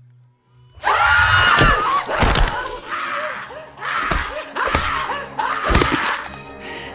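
A man screaming loudly in bursts, with several heavy thuds, over background music.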